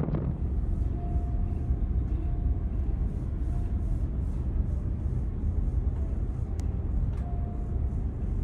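Steady low rumble of a large passenger ferry's engines and hull, heard from inside the ship, with a faint on-and-off tone and two light clicks about six and seven seconds in.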